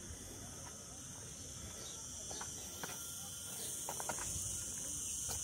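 A steady, high-pitched insect chorus that grows louder toward the end, with a few faint ticks.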